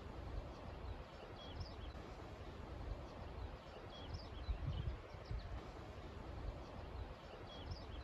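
Songbirds chirping with short, high, repeated notes scattered throughout, over wind gusting on the microphone in low rumbles that swell about halfway through and near the end.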